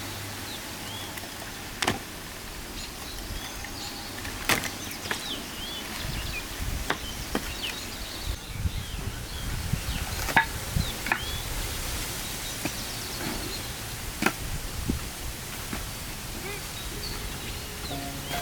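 Irregular sharp knocks and taps of outdoor food preparation, a few seconds apart, over steady outdoor background noise, with faint short chirps.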